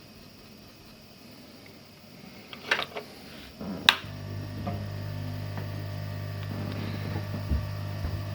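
A couple of sharp clicks, then about four seconds in a small blower motor starts and runs with a steady hum, the hot-air rework station switched on to desolder a MOSFET from a scrap motherboard.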